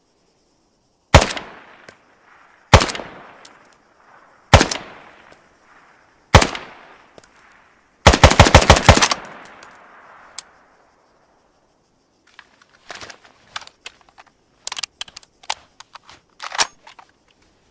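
SKS rifle (7.62×39mm, semi-automatic) firing: four single shots spaced nearly two seconds apart, then a rapid string of about nine shots in roughly a second. Several quieter clicks and clacks follow.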